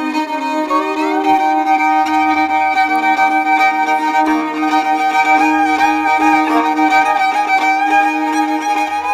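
Background music: a violin melody with sustained and sliding notes over a steady accompaniment.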